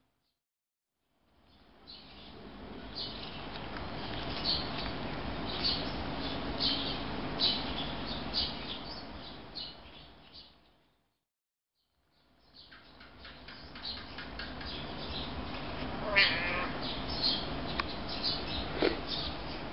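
A cat meows once, briefly, about three-quarters of the way in. Small birds chirp over a steady background murmur, and the sound fades out and drops away for about a second at the start and again near the middle.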